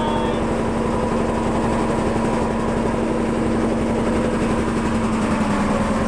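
A motorboat's engine running steadily with a constant low hum.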